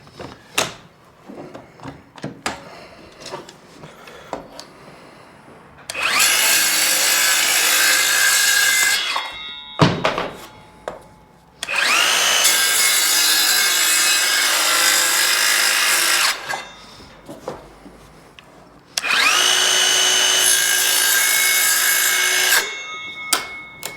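Power saw cutting PVC trim board in three runs of a few seconds each, the motor's whine rising as it spins up at each start. Small clicks and knocks from handling the board come in between.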